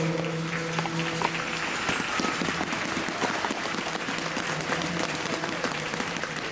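Audience applauding, many hands clapping, while the last held notes of the music fade out over the first couple of seconds.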